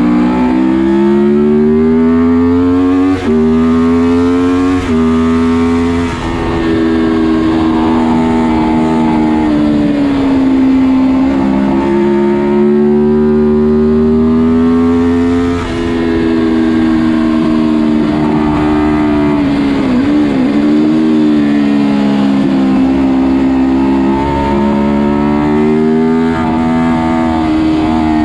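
Honda VFR750 RC24's V4 engine at racing speed, climbing in pitch with quick upshifts about three and five seconds in, then dropping back and revving up again around ten and twenty seconds in as it slows for corners and accelerates out.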